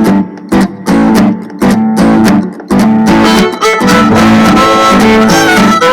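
Instrumental opening of an upbeat children's dance song. It starts with short stop-start hits for about the first three seconds, then plays on steadily.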